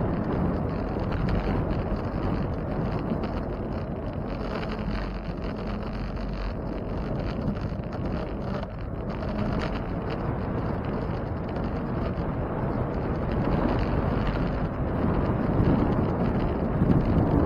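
Wind rushing over the microphone while riding a bicycle, a steady rumbling noise that grows somewhat louder near the end.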